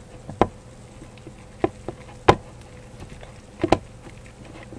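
Scattered light taps and clicks of slime being stirred in a bowl, irregular and a second or so apart, over a faint steady buzzing hum.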